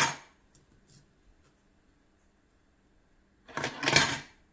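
Two quarters dropped one at a time into a coin acceptor, each a short metallic rattle as the coin runs down through the mechanism: one right at the start, the second about three and a half seconds in, with a few faint ticks just after the first.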